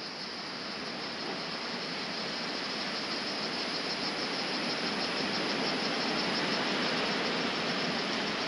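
Strong wind blowing: a steady rushing that grows gradually louder.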